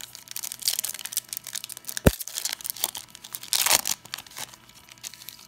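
Foil wrapper of a 2017 Topps Stadium Club baseball card pack being torn open and crinkled, with a single sharp tap about two seconds in. The crinkling stops about a second before the end.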